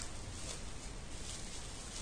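Faint rustling of bubble wrap around a book parcel as it is handled, over a low steady background hum; no loud crinkles.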